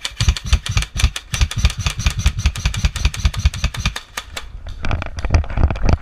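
Airsoft gun firing on full auto: a rapid rattle of shots, about a dozen a second, in long strings with a brief pause about four seconds in.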